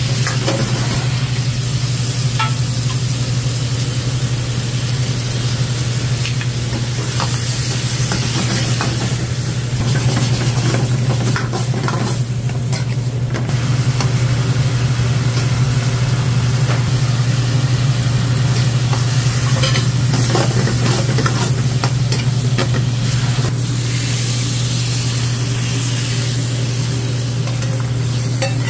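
Rice noodles, meat and vegetables stir-frying in a wok with a steady sizzle, a metal ladle clanking and scraping against the wok now and then. A steady low hum runs underneath.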